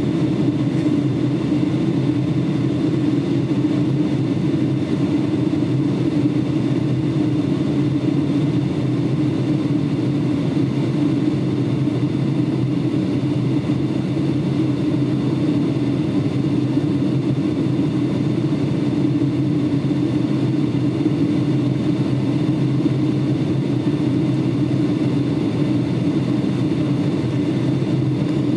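Cabin noise inside a Boeing 757 airliner in flight, descending toward landing: a steady low drone of engines and airflow with a faint high, even whine over it.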